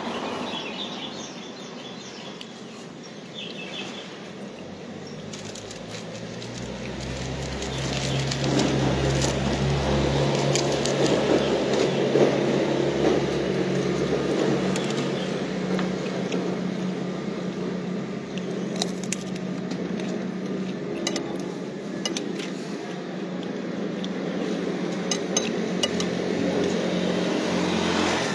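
A vehicle engine running steadily close by amid street traffic, getting louder from about six seconds in. Scattered light clinks of a spoon against a plate.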